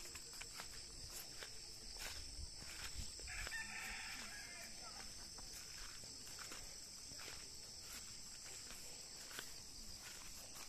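A rooster crows once, faint and distant, a little over three seconds in, over steady high insect chirring and soft footsteps through grass.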